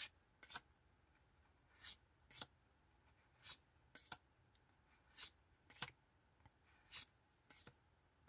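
Pokémon trading cards flipped through by hand one at a time, each card slid off the stack and tucked behind with a faint paired swish and snap, about every one and a half seconds.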